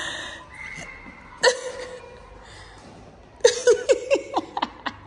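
A person laughing: a sharp vocal outburst about a second and a half in, then a quick run of short ha-ha bursts about three and a half seconds in.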